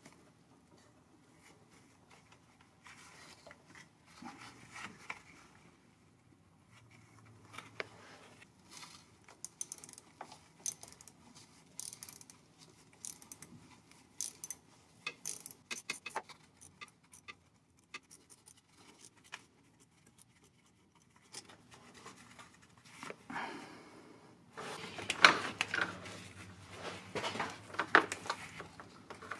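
Hand work on a transmission cooler line fitting: scattered small metallic clicks, taps and scrapes of a tool on the metal line. In the last few seconds comes a louder stretch of rustling and scraping as a rubber hose is handled.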